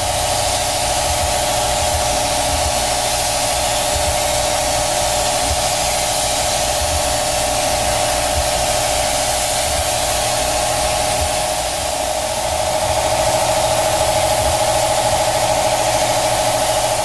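Gravity-feed paint spray gun hissing steadily as it sprays the car's body panels, over a steady droning hum that shifts slightly about twelve seconds in.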